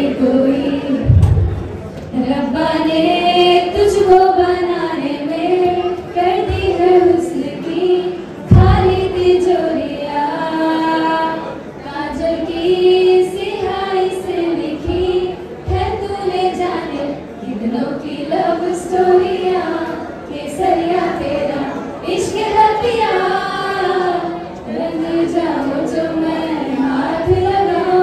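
Several women singing a song together into handheld microphones through a PA, with pauses between sung phrases and a few brief low thumps.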